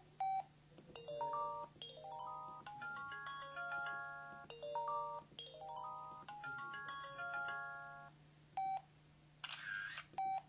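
PH-L4000V mobile phone playing its built-in electronic melody: pure, bright notes stepping upward in quick repeated runs, followed by a short beep, a brief chime and one more beep near the end.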